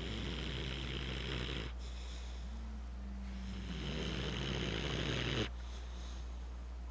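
Snoring: one long snore ending under two seconds in, then another starting about half a second later that lasts about three seconds and stops abruptly. A steady low hum runs underneath.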